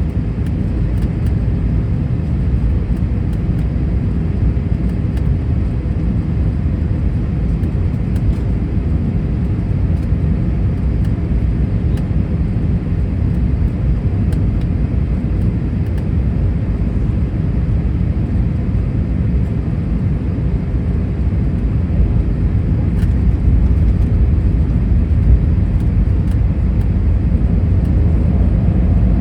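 Airbus A319 cabin noise in flight: a steady low rumble of engines and rushing air with a faint steady hum, growing a little louder near the end.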